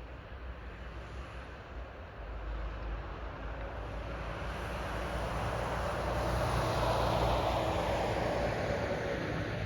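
A vehicle passing by: its noise builds over several seconds, peaks past the middle with a falling sweep in pitch, then begins to fade.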